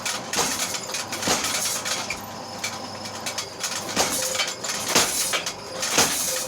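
Homemade tire-driven, spring-helper power hammer running, its ram coming down in heavy blows roughly once a second, with metallic clinking and rattling between the blows.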